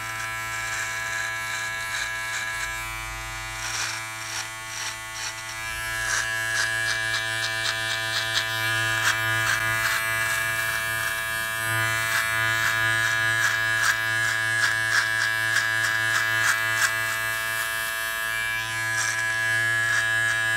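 Powertec TR-758 hair and beard trimmer running with a steady electric buzz while it is drawn through beard stubble. From about six seconds in it gets louder, and quick crackling snips from the blades cutting hair sit over the buzz.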